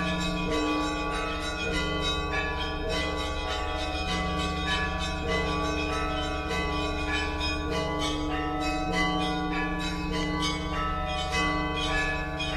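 Russian Orthodox monastery church bells ringing: a continuous peal of several bells struck in quick succession over one another's sustained ringing.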